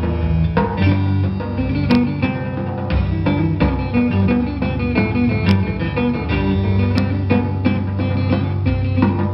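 Cretan laouto played live, a busy run of plucked notes, with a drum kit behind it and a few sharp stick clicks.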